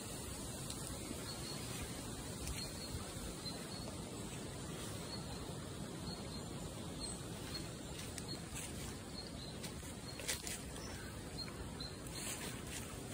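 Steady outdoor background noise with a faint, high chirp repeating about twice a second. A few crunching footsteps on leaf litter come in the later seconds.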